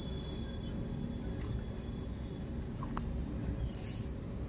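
A few faint light clicks of a miniature steel lidded pot being handled, with one sharper tick about three seconds in, over a steady low background rumble.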